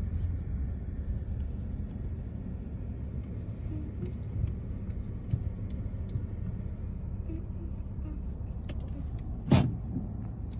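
Low, steady road and engine rumble of a moving car, heard from inside the cabin. A sharp knock comes near the end.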